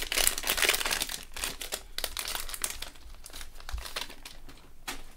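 Plastic wrapper of a football trading card pack crinkling as gloved hands pull it open and slide the cards out. The crinkling is busiest at first and thins out over the last couple of seconds.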